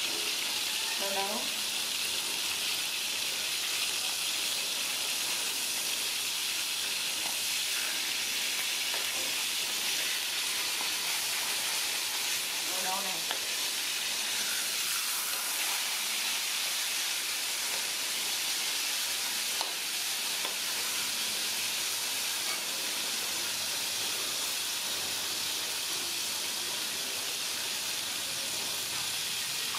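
Horse mackerel frying in hot oil in a wok: a steady sizzle, with a metal ladle stirring through it.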